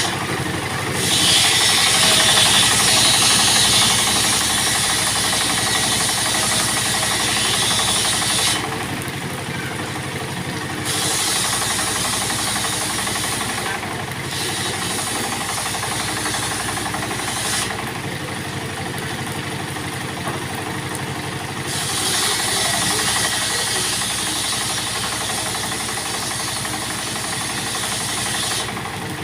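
Circular saw running steadily, with four long stretches of louder, hissing noise as the blade cuts through material, dropping back to the motor's plain running sound in between.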